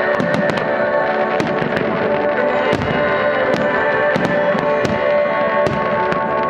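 Aerial firework shells bursting in quick succession, a dozen or more sharp bangs and crackles, over sustained music playing with the display.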